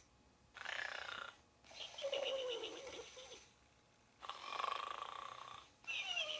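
Snoring toy pig doll playing its snore: a rasping snore in, then a whistling breath out that slides down in pitch, twice over.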